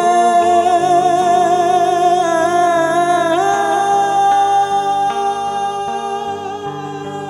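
Türkü singing: a singer holds a long wordless note with vibrato, stepping up to a higher held note about three and a half seconds in, over acoustic guitar accompaniment. The sound fades slightly toward the end.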